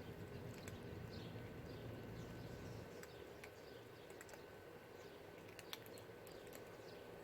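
Cats crunching dry kibble: faint, irregular small clicks and cracks, with a few faint bird chirps in the first second or so.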